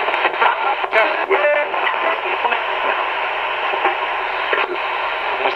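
Radio Shack 20-125 ghost box rapidly sweep-scanning the FM band, played through an amplifier. A continuous choppy run of static is broken by split-second fragments of broadcast voices, with a brief held tone about a second and a half in.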